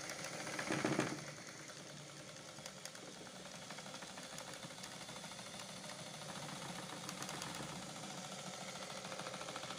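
Japanese-made Dressmaker sewing machine running steadily under its electric motor, a quiet fast whir with fine rapid ticking and a brief louder swell about a second in. Little more than the motor is heard. The machine is being run in to work out the last of the rust after being freed and lubricated.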